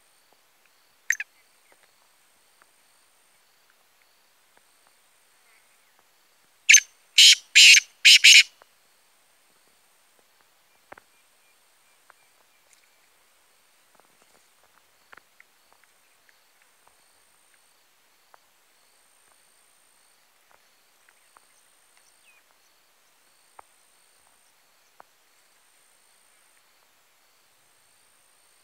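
A black francolin calling: a short harsh note about a second in, then its loud, grating multi-note call of about five notes around seven seconds in. Faint, evenly repeating high insect chirps run underneath.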